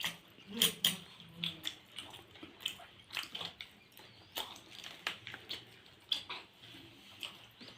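Close-up wet chewing of sticky steamed rice-flour dumplings (pithe): irregular mouth smacks and clicks, a few a second.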